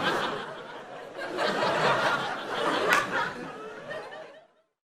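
Audience laughing: a crowd's laughter swells again about a second and a half in, then dies away near the end.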